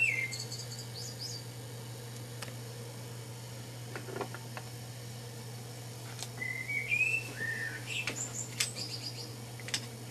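A small bird chirping and warbling in two spells, one about a second in and a longer one in the second half, with quick high twitters. Under it run a steady low hum and a few light clicks.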